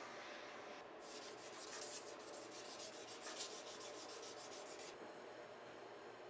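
Abrasive paper rubbed by hand over the freshly quenched steel hammer head in quick, rhythmic back-and-forth scratchy strokes, starting about a second in and stopping about a second before the end.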